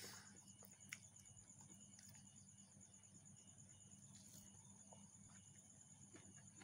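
Near silence: a faint, steady pulsing trill of crickets throughout, with a few soft clicks of eating rice by hand from a steel plate and chewing.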